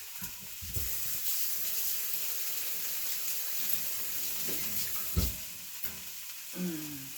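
Stir fry sizzling in a hot pan: a steady frying hiss, louder through the middle, with a couple of dull knocks.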